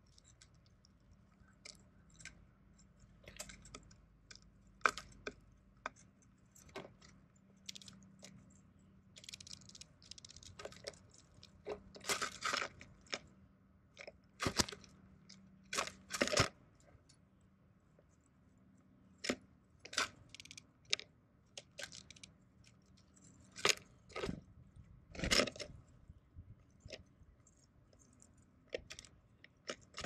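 Chipping sparrow and tufted titmouse pecking and cracking seed in a tray feeder right at the microphone: irregular sharp clicks and crunches, with louder clusters of taps near the middle and again about three quarters of the way through.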